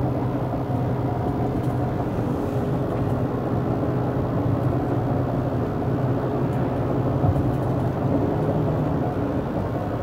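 Steady engine and tyre-on-road noise inside a vehicle's cab while cruising at highway speed: an even, unchanging drone with a low hum.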